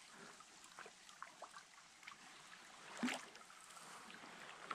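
Open canoe being paddled on calm water: faint dripping and trickling from the paddles, with one louder, sharper stroke about three seconds in.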